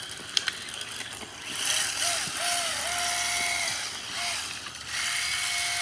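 Traxxas Slash Ultimate RC car running on 3S, its electric motor whining at a steady pitch in two runs with short rises and drops. Under it is a loud hiss, with a click about half a second in.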